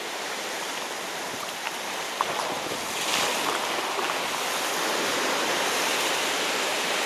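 Sea surf washing against shore rocks: a steady rushing that swells up about three seconds in, with a couple of faint clicks.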